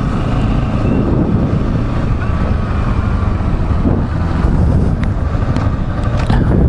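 Yamaha Serow 250 single-cylinder motorcycle running at a steady town speed, heard from the rider's own bike, with wind and road rush over a low, even engine rumble.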